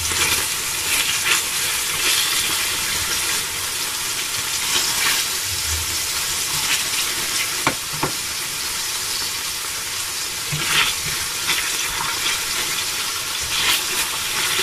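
Monkfish pieces and garlic sizzling steadily in hot olive oil in a stainless steel frying pan, with a few sharp clicks of tongs against the pan as the pieces are turned.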